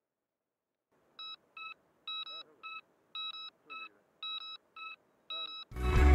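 Quadcopter's lost-model alarm beeper sounding a repeating pattern of short, high, fairly faint beeps while the quad lies downed in the grass, with a faint rustle beneath. Loud rock music starts suddenly near the end.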